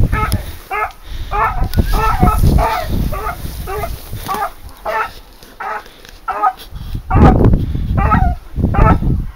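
A hunting dog baying in a steady run of barks, roughly one to two a second, as it works a wild boar out of the brush. Two loud low rumbles come in the last few seconds.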